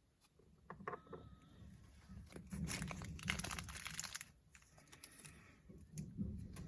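Plastic packaging being handled: a few sharp clicks, then a dense crinkling rustle lasting about two seconds, and softer handling noises near the end.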